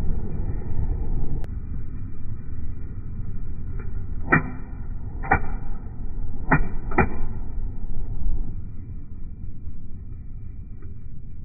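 Comfort Zone heater fan running: a steady low rush of air, with four sharp clicks between about four and seven seconds in.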